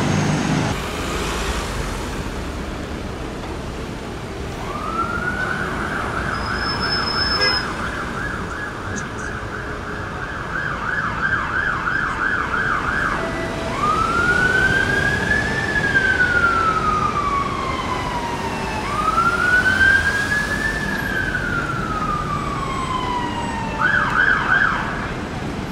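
Fire engine's electronic siren over city traffic: a fast yelp for about eight seconds, then two slow wails that each rise and fall, then a brief burst of yelp near the end.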